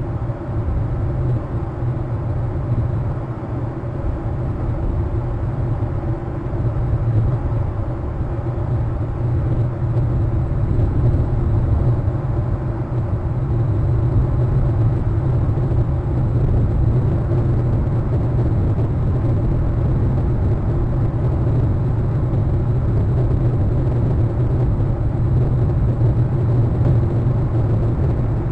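Steady low rumble with a fainter hiss over it, unchanging throughout, with no distinct events.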